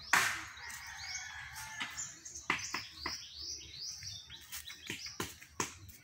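Birds chirping, a run of short, high calls that drop in pitch, repeated many times. Sharp knocks sound now and then through it.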